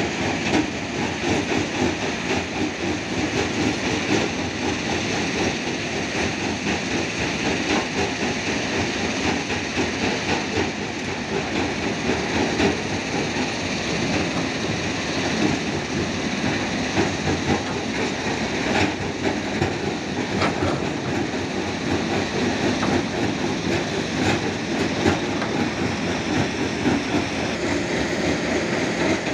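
Hitachi Zaxis 210F hydraulic excavator running steadily as it digs and swings, its engine noise mixed with a continuous rattling clatter.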